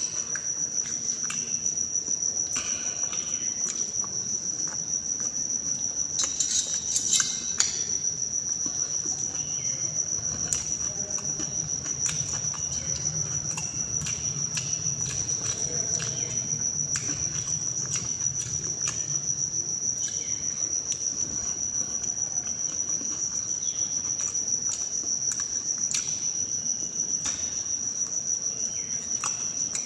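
A steady high-pitched insect-like trill, with scattered small clicks and smacking from someone eating by hand from a steel plate. There is a flurry of clicks about six to seven seconds in.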